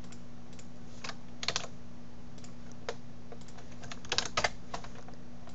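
Scattered clicks on a computer keyboard and mouse, bunched briefly about a second and a half in and again around four seconds in, over a steady low electrical hum.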